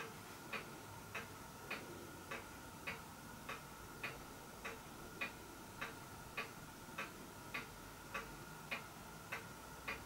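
Faint, even ticking, a little under two ticks a second, over a faint steady hum.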